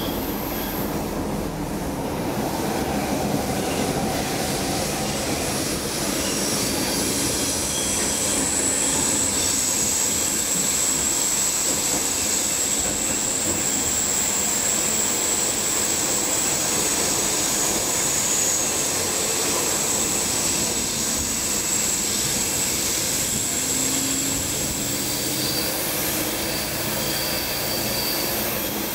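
Stockholm Metro C6 subway car in motion, heard from inside the car: a steady running rumble and hiss from the wheels on the track. A thin high-pitched squeal joins about a quarter of the way in and holds for several seconds before fading past the middle.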